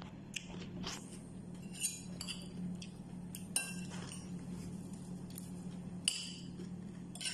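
Metal spoon clinking against a ceramic plate four times, each clink ringing briefly, over a steady low hum.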